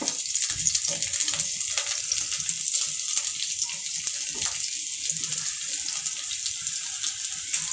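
Chopped ginger, garlic and green chilli sizzling steadily in hot oil in a wok. A wooden spatula stirs them at first.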